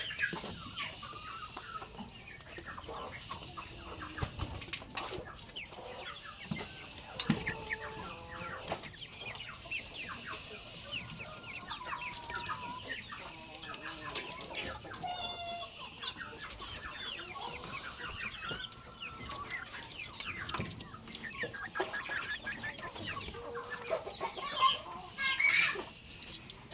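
Chickens clucking, with short calls scattered throughout and a louder run of calls near the end.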